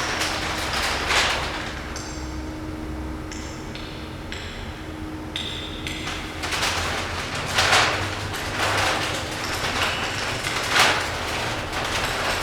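Amplified sound of 100,000-year-old ice popping and cracking, with sharp cracks every few seconds over a noisy hiss and a steady low hum. The loudest crack comes near the end.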